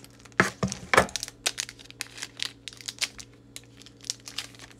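Scissors snipping open a foil Japanese Pokémon booster pack, with two sharp cuts about half a second and a second in, then a run of crinkles and clicks as the foil wrapper and cards are handled.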